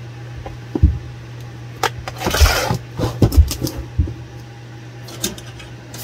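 Handling noise from gloved hands turning a plastic QS8 battery connector on a work mat: scattered short knocks and clicks with a brief rustle about two and a half seconds in, over a steady low hum.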